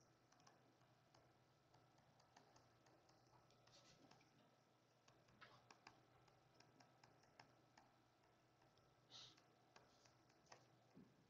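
Near silence with faint scattered ticks and taps and a couple of brief soft scratches: a stylus tapping and writing on a tablet screen.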